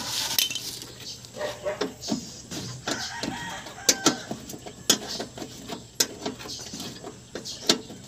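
Scattered clicks and scrapes of a screwdriver tip working at a fastener in a vehicle's plastic wheel-arch fender liner.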